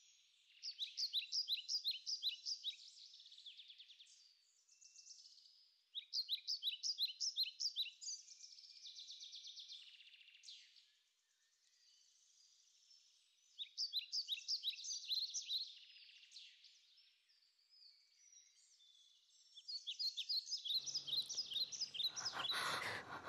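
A bird calling in four bursts of rapid, high chirps, each burst about two seconds long, with silence between. Faint background noise comes in near the end.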